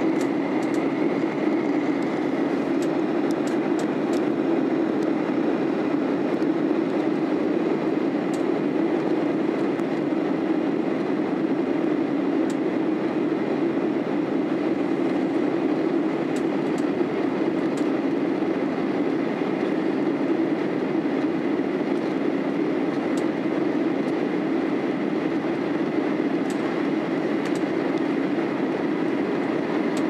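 Steady cabin noise inside a Boeing 737-800 in flight: a constant rumble of airflow and its CFM56 jet engines. A faint high whine fades out about two seconds in, and faint ticks come now and then.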